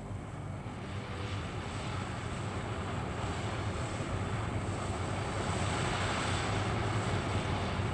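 Jet aircraft engine noise: a steady rushing sound over a low hum, slowly growing louder.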